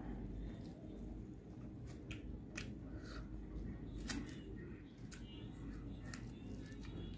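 Close-up eating sounds: scattered sharp clicks and smacks of mouth and fingers over rice and fried fish, eaten by hand, the strongest about four seconds in, over a steady low hum.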